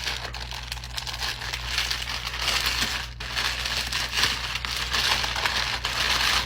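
Plastic clothing packaging crinkling continuously as an outfit is taken out of its bag, with a brief let-up about three seconds in.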